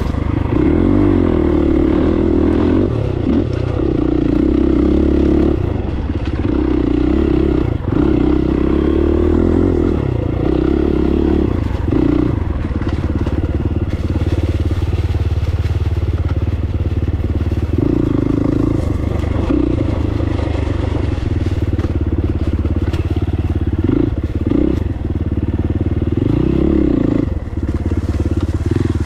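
Dirt bike engine running as the bike is ridden, its note rising and falling every few seconds with the throttle, with a few short knocks along the way.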